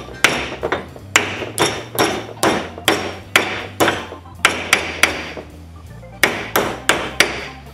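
Steel hammer striking scrap sheet metal clamped in a bench vise, about two ringing blows a second with a short pause near the end: the metal is being hand-hammered over the vise jaws into a sharp 90-degree bend.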